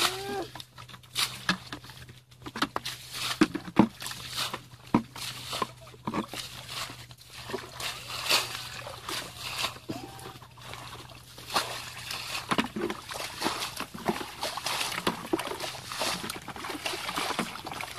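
Muddy water sloshing and splashing in irregular bursts as plastic buckets are scooped through a shallow ditch and emptied onto the bank.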